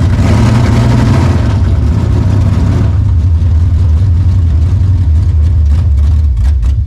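Dodge 440 big-block V8 running loud and steady, revving up a little in the first second or so before settling. A few sharp pops come near the end.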